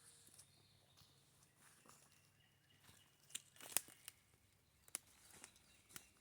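Faint crackles and snaps, a few sharp ones about a second apart around the middle and near the end, over near silence: footsteps on dry twigs and leaf litter.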